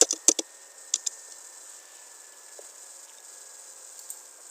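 A few sharp taps on a computer keyboard in the first second or so, then a faint steady high-pitched hiss.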